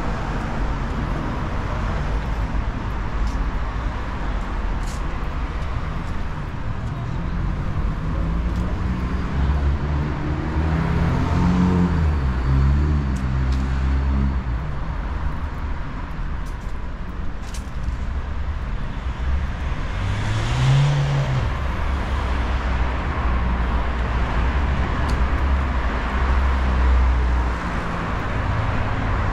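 City street traffic: cars driving past with a steady rumble of engines and tyre noise. A vehicle's engine rises and falls in pitch as it passes about ten to fourteen seconds in, and another passes briefly about twenty seconds in.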